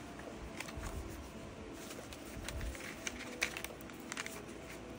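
Pages and cardstock flaps of a handmade paper journal being turned and handled: soft paper rustles with light, scattered taps and clicks.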